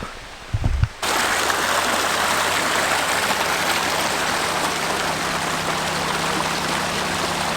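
Steady rushing of a mountain stream or waterfall, starting abruptly about a second in and holding even throughout.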